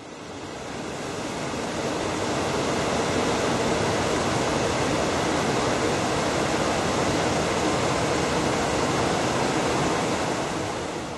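Steady rushing outdoor noise that fades in at the start and out near the end.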